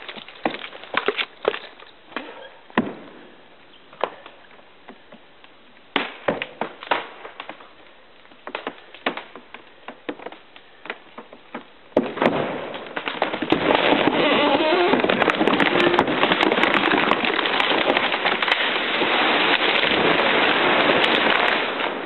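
A huge felled tree cracking and giving way: sharp snaps and pops of splitting wood come every second or so for about twelve seconds. Then a sudden, loud, sustained crash as the tree comes down through the forest, which lasts about nine seconds before fading.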